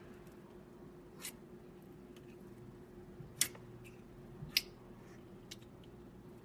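Slime being squeezed and worked by hand, giving a few sharp wet clicks and pops, the two loudest about three and a half and four and a half seconds in.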